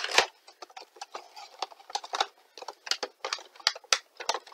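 A cardboard collectible box with a clear plastic window being opened by hand: a string of irregular crackles, taps and rustles as the flaps and packaging are pulled apart and the vinyl figure is drawn out.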